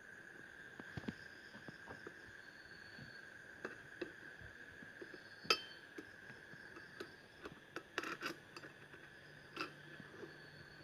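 Scattered light clicks and taps of small parts and hand tools being handled while wiring and bolting up a table fan's motor, the sharpest about halfway through and a quick cluster a little later. A steady faint high-pitched tone runs underneath.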